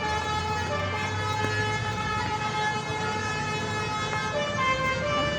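Bus 'telolet' horn: a multi-tone horn playing a tune of held notes that step from pitch to pitch, with the low rumble of the bus engine underneath.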